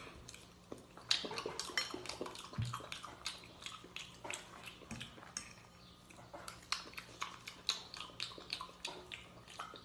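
Noisy eating: quick, irregular chewing smacks and clicks, several a second.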